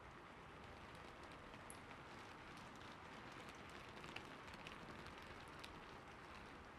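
Faint steady hiss sprinkled with light, irregular ticks and clicks.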